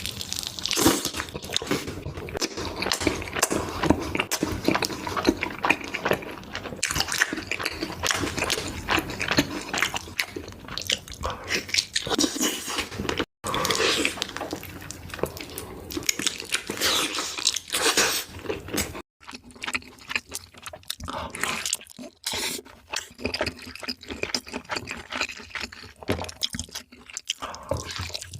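Close-miked eating sounds of a person biting and chewing spicy chicken: a dense, irregular run of short mouth clicks and chews, broken by two brief drop-outs about 13 and 19 seconds in.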